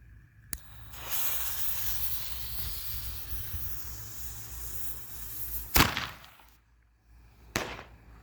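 Fuse of a consumer parachute firework hissing steadily for about five seconds, then one sharp bang as it fires, followed by a smaller pop about two seconds later.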